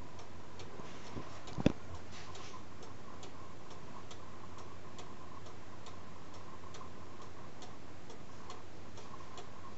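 Black Forest cuckoo clock ticking steadily, its escapement giving a few even ticks a second. A single dull thump sounds less than two seconds in.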